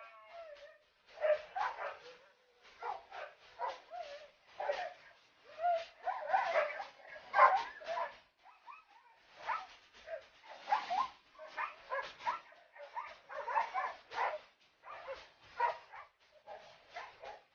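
Husky vocalizing in a long run of short, pitched barks and whining yelps, one after another with brief gaps.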